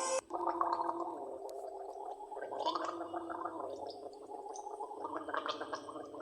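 Water gurgling with a rapid, fluttering bubbling that swells and eases, after music cuts off at the very start.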